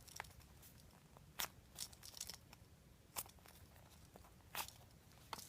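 Faint rustling and crinkling from a soft foam squishy toy being handled and squeezed in the hands: a handful of brief, soft scrapes spread over a few seconds.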